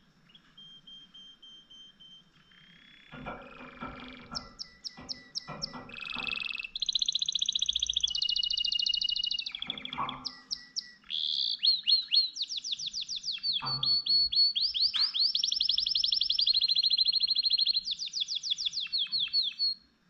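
Canary singing a long song of rapid trills and held whistled notes, quiet at first and much louder from about six seconds in, breaking off suddenly at the end. A few soft knocks are heard among the first trills.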